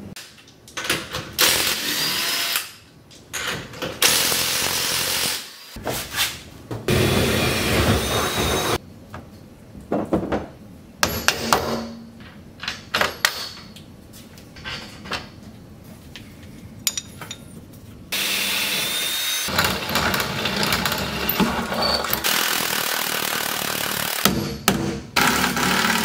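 Cordless power tool running in several bursts of a few seconds each with a faint whine, working on the roll bar's rear mounting bolts.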